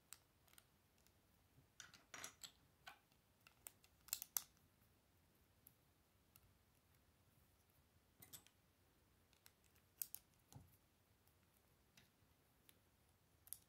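Plastic Lego bricks clicking as they are handled and pressed together by hand: scattered faint clicks and snaps, busiest about two and four seconds in and again around eight and ten seconds.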